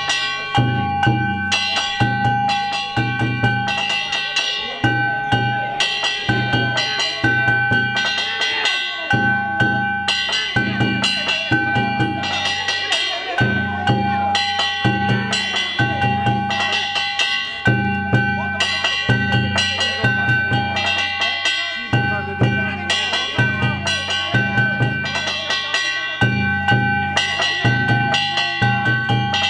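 Danjiri festival music: taiko drum beaten in a steady, repeating rhythm under the continuous ringing of metal gongs.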